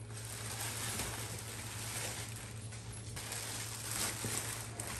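Plastic packaging crinkling and rustling, with irregular scrapes and knocks, as stroller parts are unwrapped and pulled out of a cardboard box.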